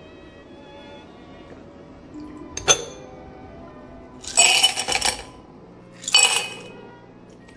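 Ice cubes tipped from a small glass cup into a ribbed glass tumbler, clattering and clinking against the glass in two pours, about four and a half and six seconds in, after a single sharp clink near three seconds. Soft background music runs underneath.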